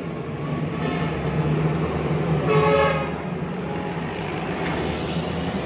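Steady engine and road noise inside the cabin of a moving vehicle, with a short pitched tone about halfway through.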